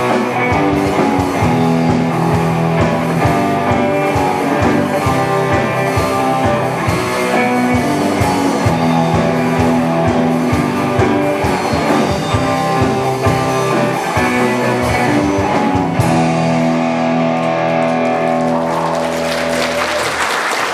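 Rock band playing, guitars strumming chords over a steady drum beat. About sixteen seconds in the drums stop and the final chord rings on, with a noisy wash swelling under it near the end.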